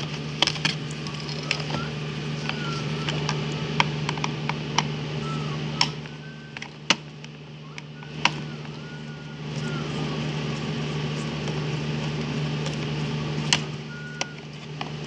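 Steady low motor hum, dipping for a few seconds mid-way, with scattered sharp clicks and taps.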